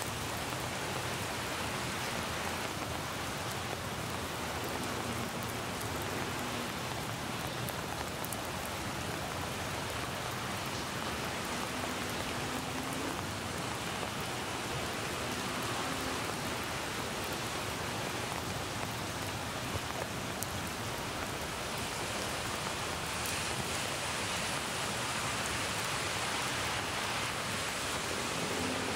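Steady rain falling, an even hiss without breaks; the recorded rain is layered with a rain sound effect.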